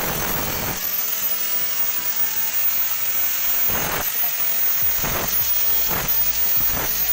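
Electric angle grinder cutting galvanized sheet steel, its disc throwing sparks; the cutting noise swells each time the disc bears into the metal, about once a second in the second half.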